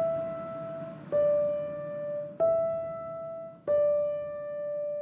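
Background music: a slow piano melody, one held note struck about every second and a quarter and left to fade.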